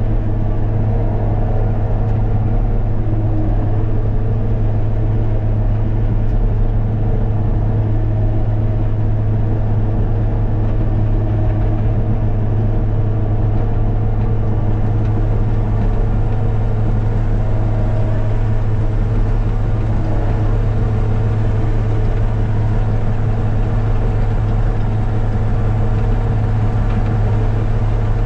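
Heavy diesel engine of construction equipment running steadily at an even speed, a constant low drone with no revving.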